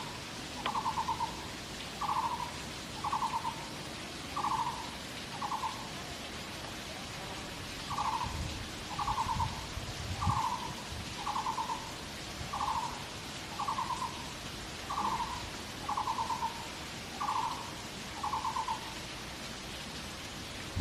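A bird calling over and over: a short trilled note about once a second, with a pause of a couple of seconds partway through, stopping shortly before the end.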